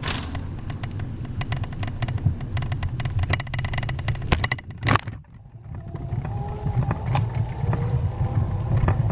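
Bicycle rolling over brick paving: a steady rattling rumble from the tyres on the pavers, with two sharp knocks a little over four and about five seconds in, then a brief lull before the rumble returns.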